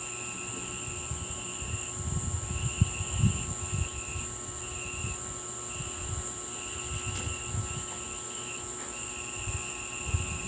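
Insects, probably crickets, chirring in stretches that stop and start, over a steady high whine. Soft low knocks and rustling of handling are heaviest between about two and four seconds in.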